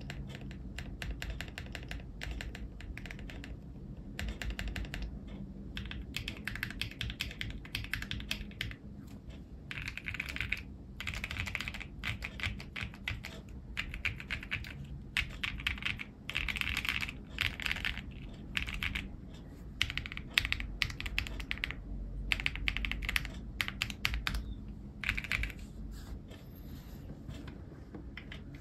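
Typing on an AKKO ACR75 v2 mechanical keyboard with Kaisya switches: quick runs of keystrokes broken by short pauses, with a few denser, louder flurries.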